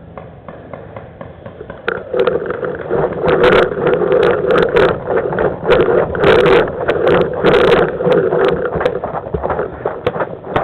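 Paintball marker firing repeatedly in rapid bursts, with a steady hum beneath, starting about two seconds in.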